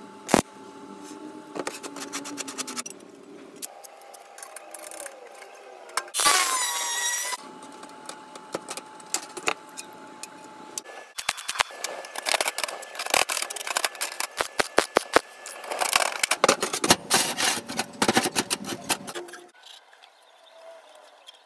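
Metalworking on thin sheet steel: a brief stick-welding crackle, a loud ringing metallic sound lasting about a second, then many sharp metallic taps and clinks on the steel plate.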